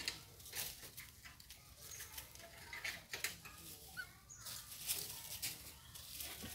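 Scattered rustling and crackling of dry leaves on rocky ground, with a brief high chirp about four seconds in.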